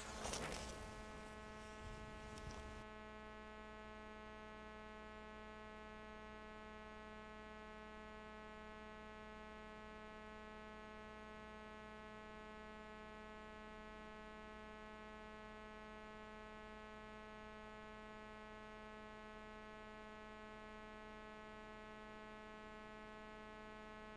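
Faint, steady electrical mains hum with a buzz of evenly spaced overtones. A little faint noise sits over it in the first three seconds.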